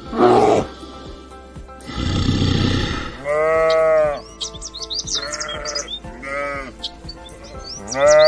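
Farm animal bleating: four short calls from about three seconds in, each rising and falling in pitch, over background music with high chirping. A short rough burst of sound comes at the very start.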